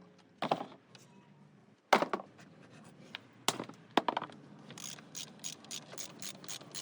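Hand tools working on metal during a timing belt job: a few separate sharp knocks, then a run of about six quick, even clicks a second near the end.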